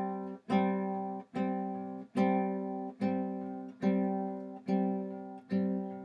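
Acoustic guitar strumming the same chord on a steady beat, a little more than one strum a second, each strum ringing out and fading before the next.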